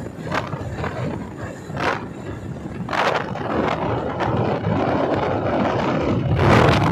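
Wind buffeting the microphone on a moving motorcycle, over the rumble of the bike and the road. The wind rushes louder in gusts several times and is strongest near the end.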